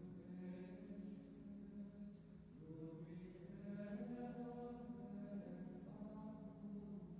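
Faint chanting: voices holding long notes that step to a new pitch every second or two.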